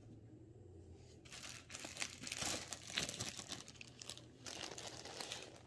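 Plastic bag crinkling and rustling as it is handled, starting about a second in with many short crackles and pausing briefly before picking up again.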